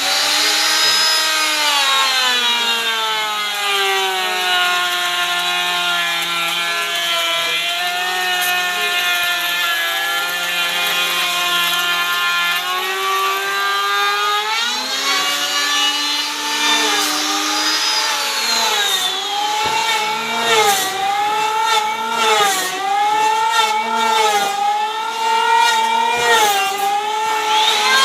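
Power saw cutting wood, its motor pitch sagging under load and recovering again and again; the dips come every second or two in the second half, with scattered sharp clicks.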